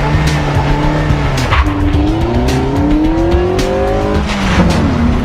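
Car engine accelerating hard, its pitch climbing and then dropping at gear changes, over music with a steady beat.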